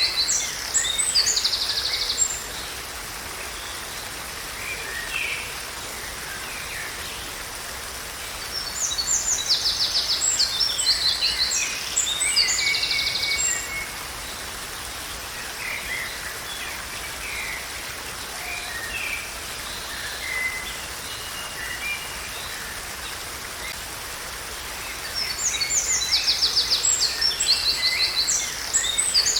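A songbird singing loud phrases of fast repeated trilled notes, at the start, again about nine seconds in, and near the end, with softer scattered calls between. Under it runs a steady rush of falling water.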